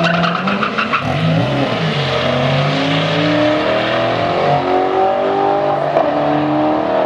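Chevrolet Corvette launching off a drag strip start line and accelerating hard, its engine pitch climbing and dropping back with each of several upshifts as it pulls away. Tires chirp briefly at the launch.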